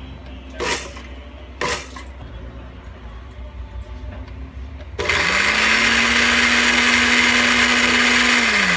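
A Tough Mama NTMBG-5 countertop blender is switched on about five seconds in, pureeing cooked rice, fish and bok choy in sinigang broth. Its motor spins up quickly to a steady whine over the churning, then starts to wind down right at the end. Two short knocks come before it starts.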